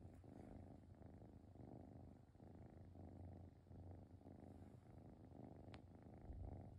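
A grey-and-white kitten purring softly in its sleep: a faint, steady rumble that swells and fades with each breath.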